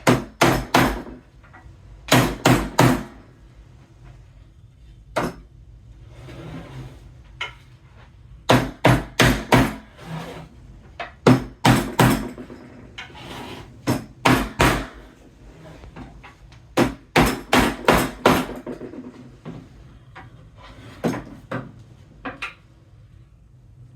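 Mallet blows on wood, driving IKEA IVAR slats into the side rails: groups of two to five quick, sharp strikes with short pauses between.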